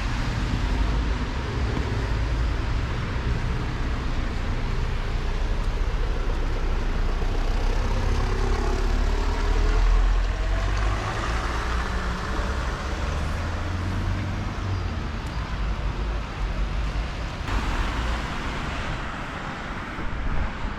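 Street traffic noise: motor vehicles running past, with a steady deep rumble under a broad hiss.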